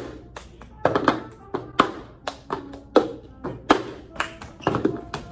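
Cup-game rhythm: a plastic cup tapped and slapped down on a wooden tabletop between hand claps, in a repeating pattern, with music.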